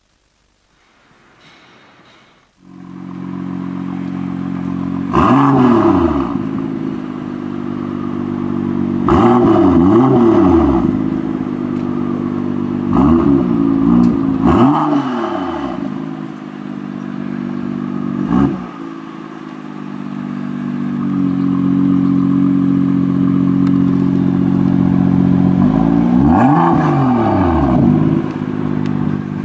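BMW M2's turbocharged 3.0-litre inline-six starting up about two and a half seconds in, then idling through its quad exhaust with a series of quick throttle blips, each rev rising and falling back to idle.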